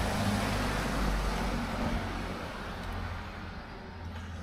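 A road vehicle going past, its engine and tyre noise fading steadily as it moves away.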